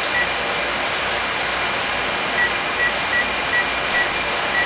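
Kitchen exhaust fan running steadily. Over it an appliance keypad beeps, once near the start and then about six times in an even run in the second half, as a 10-minute timer is keyed in.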